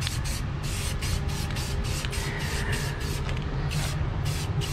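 Aerosol spray-paint can hissing in quick short bursts as black paint is sprayed onto a cast-iron engine block, over a steady low hum.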